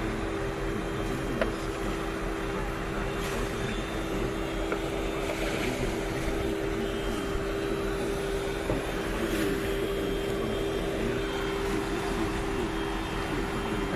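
Muddy floodwater rushing past in a fast torrent, a steady rushing noise, with a steady two-note hum underneath and faint voices in the background.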